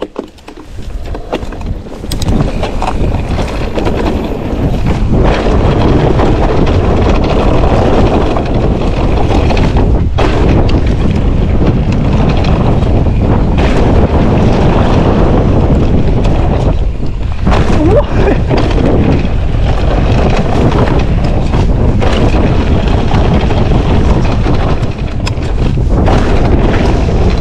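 Wind buffeting the microphone of a camera on an electric mountain bike riding fast down a dirt trail: a loud, steady rush of noise. It builds over the first few seconds and has short dips about a third and two thirds of the way through.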